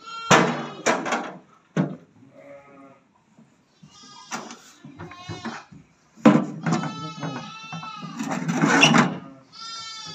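Livestock bleating: a run of repeated high calls of varying length, the longest lasting about three seconds from a little past the middle.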